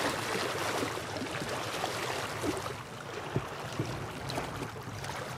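Small waves lapping and washing over the rocks at a lake's edge, a steady wash with a few faint small knocks.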